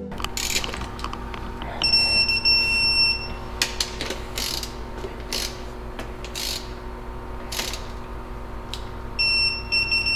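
Digital torque wrench tightening bolts on a 4G63 engine's bottom end: ratchet clicks between pulls and two long steady electronic beeps, one about two seconds in and one near the end, each marking that the set torque has been reached.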